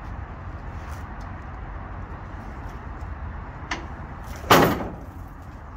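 A cut section of painted steel body framework is lowered and comes down on the concrete yard with one loud clanking impact about four and a half seconds in, after a smaller knock just before. A steady low rumble runs underneath.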